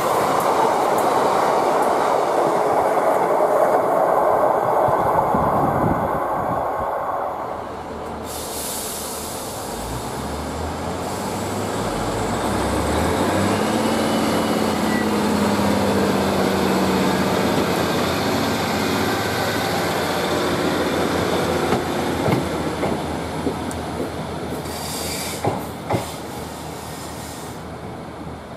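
ScotRail Class 153 diesel multiple units passing at speed, with loud wheel-on-rail noise. About eight seconds in this gives way to the units' underfloor diesel engines revving up in steps and running as the train pulls away, fading towards the end.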